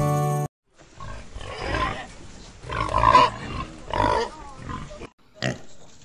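Strummed acoustic guitar music cuts off half a second in. Then a sow and her nursing piglets grunt, with three louder bursts about a second apart and a few short sharp calls near the end.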